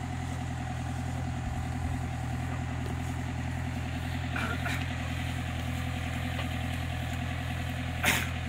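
Mini excavator's diesel engine running steadily, a low even drone, with a single brief clank near the end.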